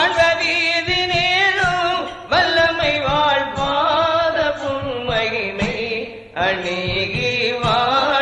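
Tamil Islamic devotional song music: a wavering, ornamented melody over drum strokes, with two short breaks in the melody.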